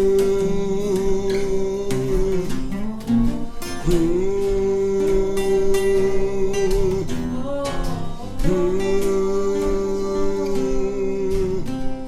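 Acoustic guitars strumming with an acoustic bass, over which a voice holds three long wordless notes of about three seconds each, each sliding up into pitch.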